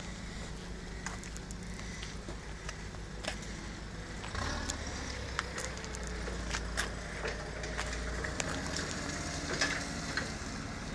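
A steady low engine hum, growing louder about four seconds in and easing back a few seconds later, with scattered light clicks.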